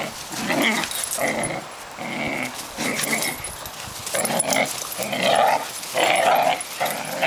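Two Dobermans growling in play as they tug against each other over a toy, in uneven spells.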